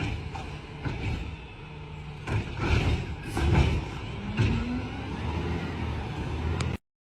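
Garbage truck engine running, with several loud knocks and clanks and a brief rising whine; the sound cuts off abruptly near the end.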